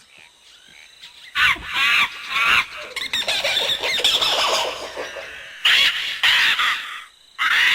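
A rainforest nature-sounds recording: shrill jungle bird and animal calls, many gliding up and down in pitch, starting about a second and a half in after a faint opening and dipping briefly near the end.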